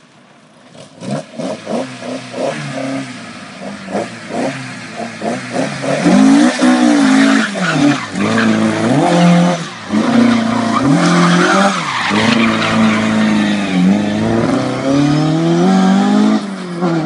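Car engine revved hard, its pitch sweeping up and down, with tyres skidding and squealing on concrete as the car spins and turns. Short choppy blips of revs at first, then louder, sustained revving and tyre squeal from about six seconds in.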